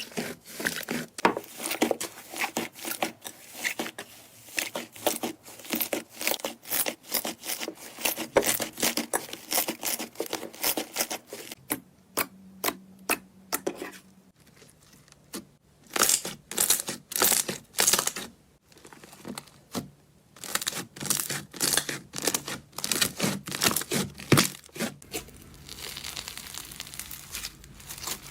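Slime being squeezed and pressed by hand, giving runs of rapid crackling and popping clicks with short pauses between handfuls. Near the end it turns to a softer, steadier crinkling.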